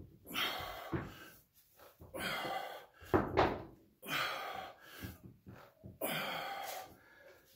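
A man's heavy, forceful breaths during alternating dumbbell curls, coming roughly every one to two seconds in time with the reps. There are a couple of dull knocks, the loudest about three seconds in.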